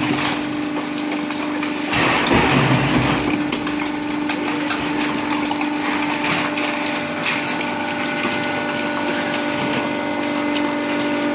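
Hydraulic can press running: a steady hum from its pump, with a louder burst of crunching and crackling about two seconds in as cans are crushed, and scattered clicks. A second, higher hum joins about seven seconds in.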